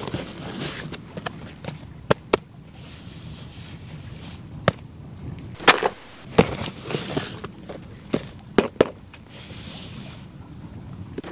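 Cardboard and paperboard boxes being handled: rustling and scraping, with a string of sharp taps and knocks as a white inner box is lifted out of its carton and set down on gravel.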